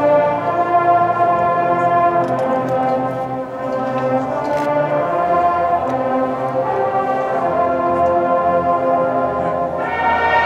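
Several marching bands playing together, the brass holding sustained chords that swell louder near the end.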